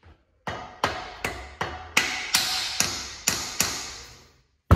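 A rubber mallet hammering a tight, greased breather plug into the breather opening of a Honda D-series engine block: about nine sharp strikes, two to three a second, each with a short ring. A single sharper, louder knock comes near the end.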